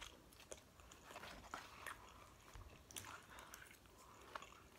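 Faint chewing with scattered small crunches: a person eating crunchy hot Cheetos with her mouth closed.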